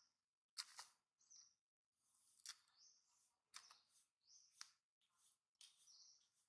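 Faint, irregular crunches and clicks of a macaque biting and chewing fresh lotus seeds and picking at the seed pod, about a dozen short sounds with brief silences between.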